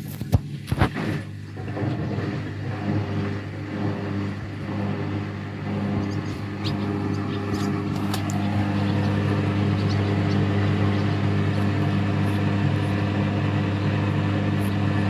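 Indesit EcoTime washing machine running with a steady mechanical hum, after a few sharp clicks at the start; the hum cuts off suddenly at the end.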